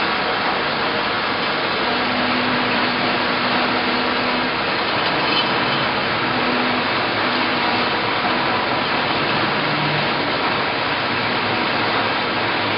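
Johnson Model J horizontal bandsaw running and cutting heavy stock, a steady, unbroken machine noise.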